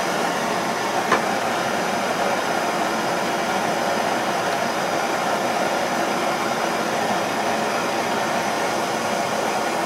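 Gas torch flame hissing steadily while a filler piece held in vice grips is heated to tin it with silver solder. A single sharp click about a second in.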